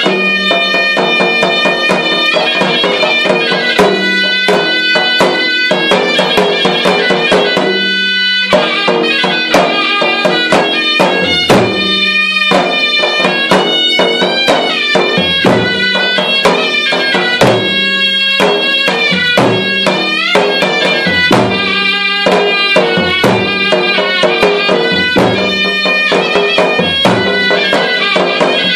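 Malay gendang keling ensemble: a serunai shawm plays a reedy melody over two double-headed gendang drums, which are struck with hand and looped cane stick in a quick, dense rhythm. From about a third of the way in, a hanging gong adds a deep stroke roughly every two seconds.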